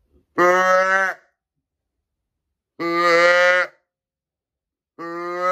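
Flextone Headhunter multi-tone deer call set to fawn, blown in three bleats of about a second each, evenly spaced; each holds a steady pitch and dips slightly at the end. The bleat imitates a missing fawn and is meant to draw in does.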